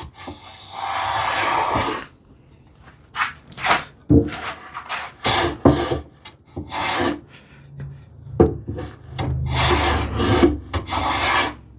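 Hand plane taking very thin shavings off the edge of a wooden drawer side, in a series of strokes: a longer pass near the start, several short ones in the middle, and a longer run of passes near the end.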